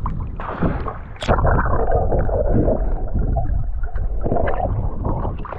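Water sloshing and gurgling over an action camera's microphone as the camera goes underwater in a pool, a muffled rumble that gets louder about a second in.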